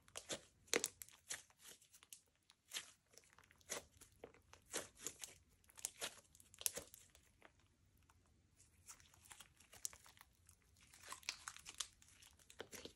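Slime being squeezed and stretched by hand: a run of irregular sticky crackles and little pops, with a quieter spell just past the middle.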